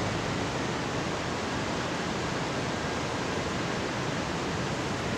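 Steady, even hiss of outdoor background noise, with no distinct events.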